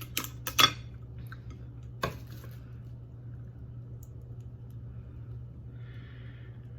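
Kitchen scissors snipping and cracking through a blue crab's spiky shell: three or four sharp snaps at the start and one more about two seconds in.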